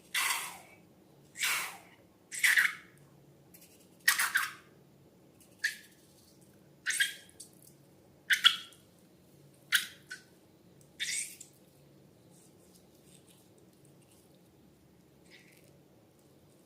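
Slime being squished and worked by hand: about nine short wet squelches, roughly one every second and a half, stopping about eleven seconds in.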